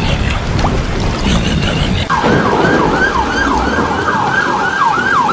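Emergency vehicle siren in its fast yelp mode, starting about two seconds in and sweeping up and down about three times a second.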